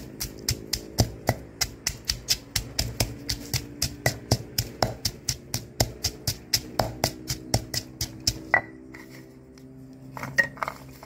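Granite pestle pounding lemongrass and shallots in a granite mortar: steady thuds about three a second, stopping about eight and a half seconds in, then a couple more strikes near the end.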